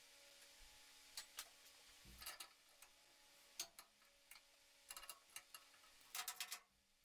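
Faint, scattered clicks and light knocks from tools or metal parts being handled, with a dull thump about two seconds in and a quick cluster of clicks near the end.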